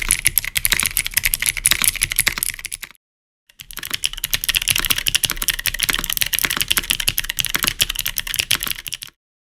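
Fast typing on a Neo75 CU mechanical keyboard with clicky switches, aluminium plate and gasket mount: a rapid, sharp clatter of keystrokes. The typing cuts off dead about three seconds in, starts again half a second later, and stops shortly before the end.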